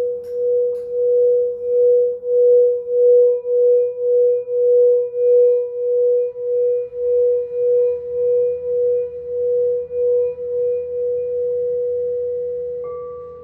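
Crystal singing bowl sounding one sustained tone that swells and fades in a steady wobble, about one and a half pulses a second. Near the end a second, higher-pitched bowl joins in.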